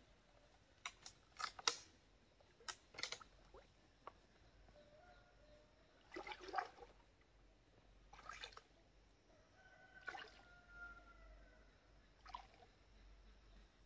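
Faint water sloshing and splashing as legs wade step by step through shallow muddy water, in irregular splashes a second or two apart.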